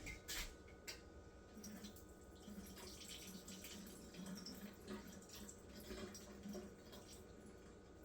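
Liquid from a freshly opened can of corn being drained off: a faint trickle and drips, with a few light clicks near the start.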